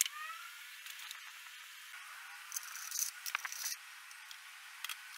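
Faint knocks, clicks and a short scrape as a wooden table frame with melamine top and levelling feet is handled and shifted on a plywood board; the sound is thin, with no low end.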